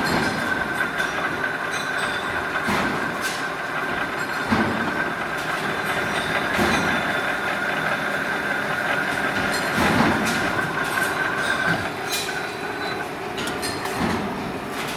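Pulley spinning machine forming the V-groove in a steel plate under a coolant spray: steady machine running noise with a high whine that cuts off about twelve seconds in, and several clanks along the way.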